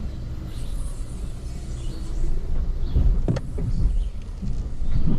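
Pickup truck engine running with a steady low rumble while the truck sits stuck in deep water, with a few knocks about three seconds in.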